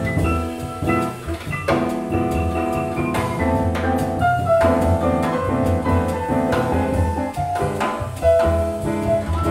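Instrumental jazz from a small group: grand piano playing a run of quick chords and single notes over a walking double bass and a drum kit with cymbals.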